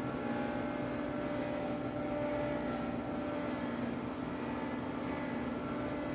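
Steady machine hum with a few fixed pitches, unchanging throughout.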